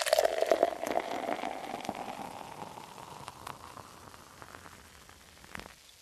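Beer poured into a glass: the pour fades over the first couple of seconds into the fizzing and crackling of the foam head, which slowly dies down. A short click comes near the end.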